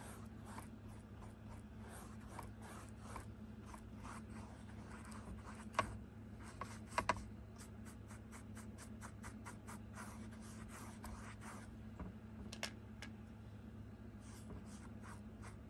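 A paintbrush stroking paint onto a stretched canvas: quick, repeated short scratchy brush strokes, with a few sharper clicks about six, seven and twelve seconds in.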